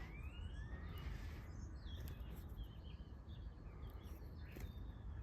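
European robin giving faint, thin high chirps, with a couple of rising notes near the start, over a steady low background rumble.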